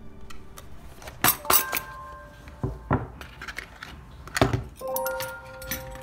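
Metal cutlery and a plastic case being handled: a few sharp clinks and clicks, loudest about a second in and again past four seconds, with crinkling of clear plastic wrapping. Soft background music with held notes plays underneath.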